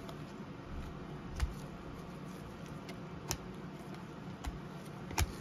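Chrome trading cards being flipped through by gloved hands: a few short, sharp clicks as the stiff cards tap and slide against one another, over a steady low hum.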